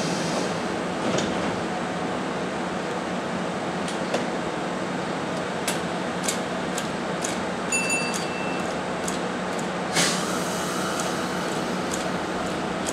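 Railway station platform ambience: a steady hum with scattered clicks and knocks, a brief high beep about eight seconds in, and a short sudden hiss about ten seconds in.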